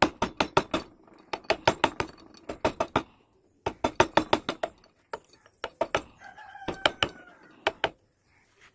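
Sharp knocks of a mallet driving a wood-carving chisel, in quick runs of about six taps a second with short pauses between runs. A rooster crows in the background about six seconds in.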